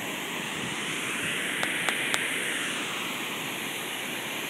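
Large plaza fountain, its jets of water falling back into the basin in a steady rush of splashing. Three short clicks come a little past the middle, about a third of a second apart.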